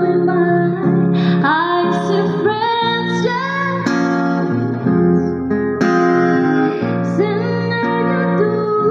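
A woman singing a slow song while playing chords on an acoustic-electric guitar, both coming through a small acoustic amplifier. Her long held notes slide between pitches over the guitar without a break.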